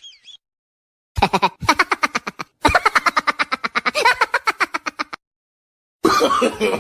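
Comedy sound effect of rapid cackling laughter in three bursts, pulsing about ten times a second, followed about a second later by a wavering, whining voice.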